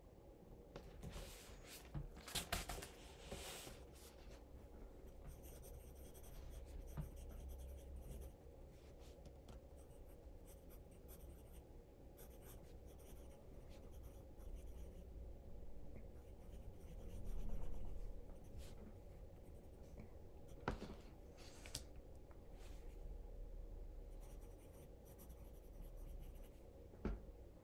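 Pencil writing on notebook paper: faint scratching strokes that come and go, with a few sharp clicks in between.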